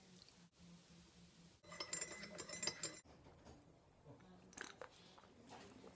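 Brief light clinking and clicking of small hard objects for about a second, roughly two seconds in, over faint room tone.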